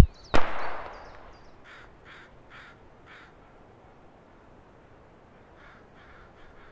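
A single sharp gunshot with a short echo, then crows cawing four times in quick succession, with fainter caws near the end.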